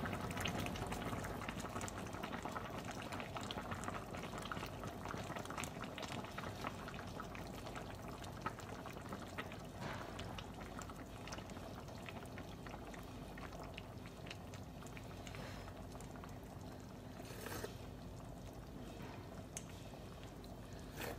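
Mackerel stew bubbling at a boil in a wide pot on medium heat, a steady crackle of small bubbles popping that slowly grows quieter.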